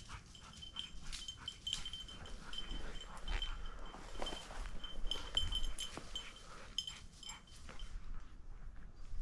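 A gun dog's collar bell jingling in quick, irregular runs as the dog moves through cover, over the rustle and twig snaps of walking through brush. The bell falls silent near the end.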